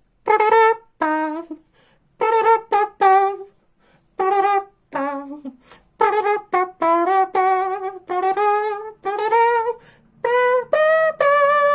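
A man singing a wordless, trumpet-like melody in short phrases with a wavering pitch, the notes getting longer and more drawn out from about halfway through.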